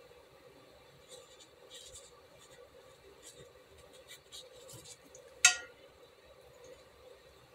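Faint dabbing and scratching of a round watercolour brush stippling paint onto rough watercolour paper, over a low steady hum. About five and a half seconds in comes a single sharp clink with a brief ring, much louder than the brushwork.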